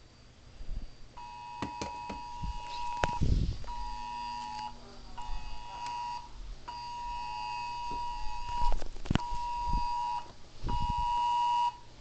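iPhone Wireless Emergency Alert attention tone, a steady two-note chord, played through a PA system in its alert rhythm of one long tone and two short ones, twice over. A few light handling knocks are heard alongside.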